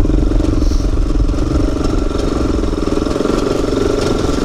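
ATV engine running steadily as the quad is ridden along a rocky trail.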